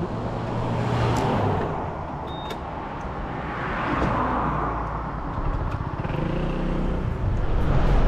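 Road traffic: vehicles pass one after another, swelling and fading about a second and four seconds in. Near the end a Honda PCX scooter's engine picks up and wind rumbles on the microphone as it rides off.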